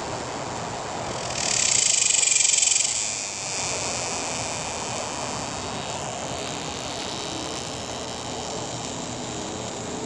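A cicada gives a loud, high, rapidly pulsing buzz a little over a second in, lasting about a second and a half, over a steady background hiss.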